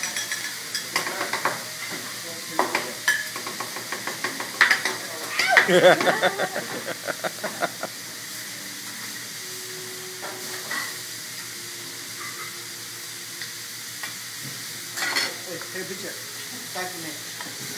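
Vegetables and shrimp sizzling on a hibachi flat-top griddle, with a chef's metal spatulas clicking and scraping against the steel in quick strokes. The strokes fall silent about halfway through and come back briefly near the end. A voice is heard briefly about six seconds in.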